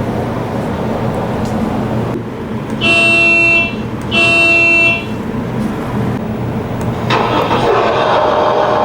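Horn of an RC excavator sounding two short beeps about a second apart, over the steady whir of the machine running. About seven seconds in a louder whirring starts as another function is worked.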